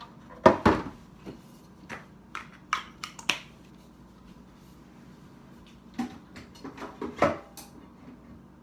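Scattered sharp knocks and clacks of kitchen things being handled and set down on a counter. The loudest comes about half a second in, a quicker cluster follows between two and three and a half seconds, and two more come near six and seven seconds.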